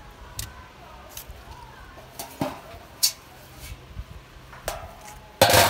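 A plastic poultry drinker knocking and clattering as it is handled around a galvanized metal tub, a scatter of separate knocks, with a louder half-second rush of rustling noise near the end. Faint hen clucks sound in the background.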